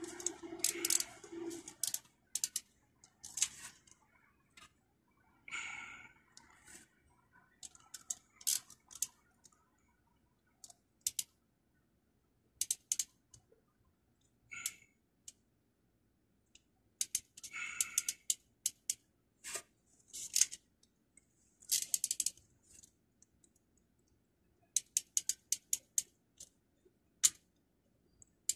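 Irregular sharp clicks and snaps of hand work on the wiring and terminals in an air-conditioning unit's electrical control panel, with a quick run of clicks near the end.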